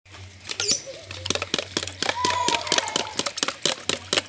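Hot oil popping and crackling in a round multi-cup frying pan as egg-coated dough balls fry, a fast irregular run of sharp pops.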